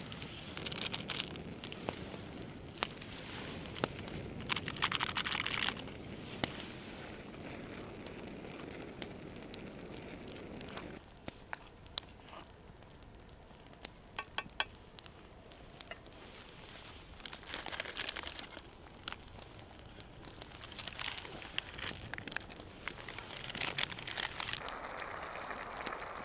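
Jjajang sauce with onion and green onion simmering and sputtering in a cast-iron skillet over a small wood-fire stove, with scattered pops and crackles. A sauce packet crinkles near the start.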